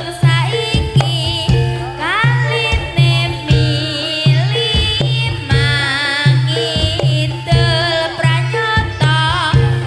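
Reog kendang ensemble playing: kendang drums beat a steady low pulse about twice a second under a wavering, ornamented high melody line.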